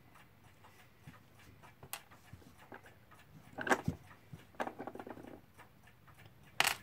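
Small metal clicks and handling noises from a clock movement being worked on with fingers and a screwdriver, with a louder knock about three and a half seconds in and a sharp one near the end.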